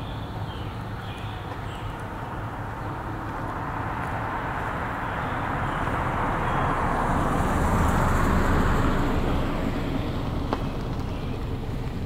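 A car driving past on the street: tyre and engine noise swells, is loudest about eight seconds in, then fades away.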